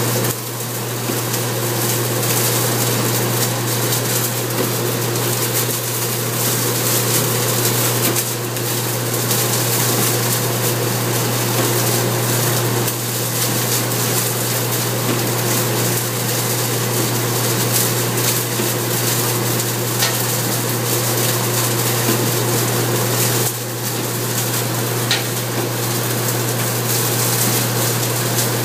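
Straw-processing machine running steadily, its tined rotor spinning through loose straw: a constant low hum under a broad rushing noise.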